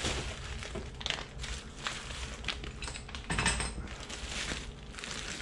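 Plastic bag and bubble wrap crinkling and rustling as they are handled and pulled apart, in irregular bursts.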